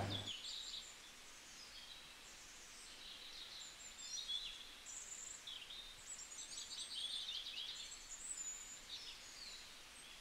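Faint birds chirping, in quick scattered runs of high notes.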